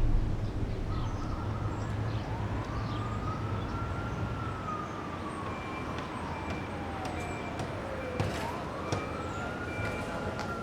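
A siren wailing in a slow rise and fall: the pitch climbs, slides down over several seconds, then sweeps up again about eight seconds in.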